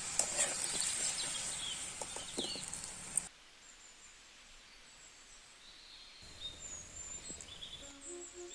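Outdoor ambience with birds chirping and calling over a steady background noise. About three seconds in it cuts abruptly to a much quieter background with only a few sparse, high chirps.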